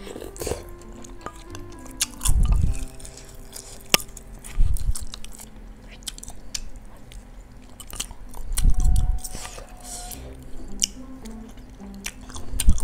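Close-up chewing and mouth sounds of a person eating bakso meatball soup, many small wet clicks, with four short dull low swells. Soft background music plays underneath.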